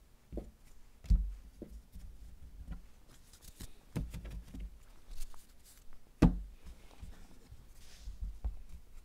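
Hands handling a stack of trading cards at a felt-covered table: a series of soft knocks and thumps, the loudest about six seconds in, with brief papery rustling of card edges between them.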